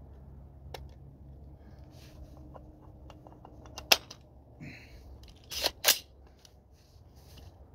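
An AR-style 6.5 Creedmoor rifle being handled and readied: small ticks, one sharp metallic click near the middle, then two quick loud clacks about a second and a half later.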